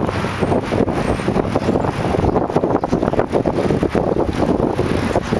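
Wind buffeting the microphone of a camera carried on a moving bicycle: a loud, steady rush broken by frequent uneven pops.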